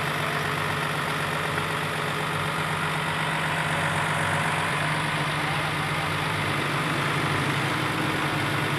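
Diesel engine of an Isuzu crane truck running at a steady idle, powering the truck-mounted crane while it holds a small tractor in the air.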